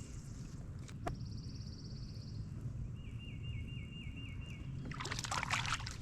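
Water lapping and sloshing around a kayak over a low steady rumble, with birds calling: a fast high trill about a second in, then a run of about eight quick chirps. Near the end comes a louder splash and slosh of water.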